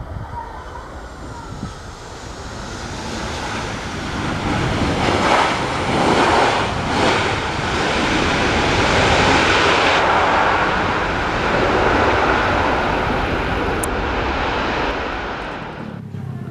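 Airliner passing low overhead on its landing approach, its engine noise building over several seconds, loudest in the middle, then fading away. The sound cuts off abruptly near the end.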